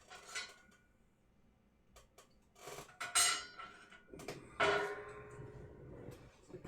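Small metal parts being handled on a workbench: a few light clicks, then two sharp metallic clinks that ring briefly.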